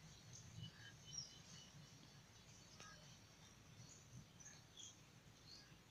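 Near silence: faint room tone with a low hum and scattered faint, short high chirps.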